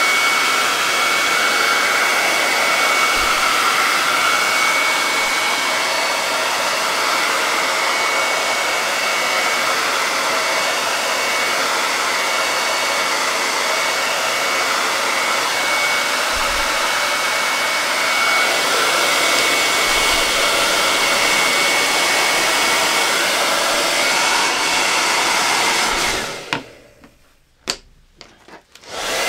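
Handheld blow dryer running steadily to dry wet paint on a wooden cut-out: a loud rush of air with a steady high whine. Near the end it cuts off for about two and a half seconds, with a couple of clicks, then starts up again.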